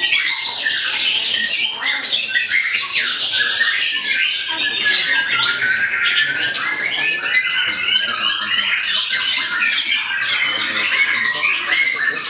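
Many caged songbirds singing at once in a bird-song contest: a dense, unbroken mass of overlapping chirps, trills and quick rising and falling phrases.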